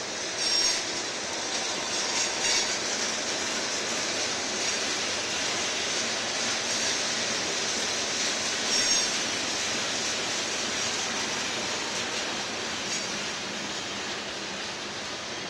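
Freight train's open-top hopper cars rolling steadily past, a continuous noise of steel wheels on the rails, with brief faint high wheel squeals about half a second and nine seconds in.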